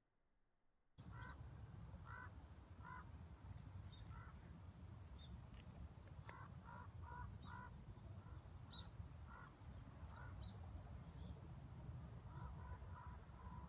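Ravens calling, a series of short harsh croaks in quick runs, with a few brief high chirps and a low steady rumble underneath. The calls start about a second in.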